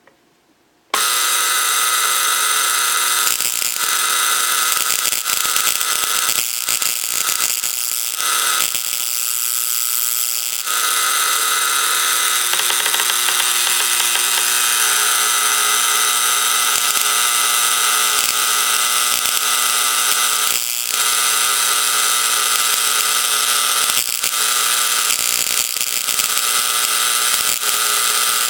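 Shelton coil, a high-voltage coil, running with a loud buzz on a steady pitch that starts abruptly about a second in. It cuts out briefly several times over the next ten seconds, then runs steadily. This is the coil running after one layer of its secondary winding was removed to stop internal arcing.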